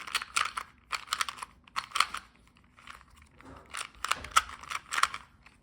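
Plastic 2x2 Rubik's cube being turned by hand: quick clusters of clicking, clacking layer turns, with a short lull about halfway through, as the final step of the solve is done.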